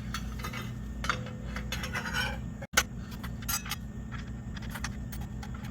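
Small metallic clicks, clinks and scrapes of a circular saw blade and its washer being handled and fitted onto the saw's arbor. A steady low hum runs underneath.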